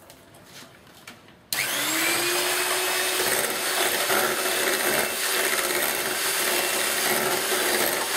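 A few faint clicks, then about a second and a half in an electric hand mixer switches on, its motor whirring up to speed and then running steadily as the beaters whisk eggs and sugar in a glass bowl.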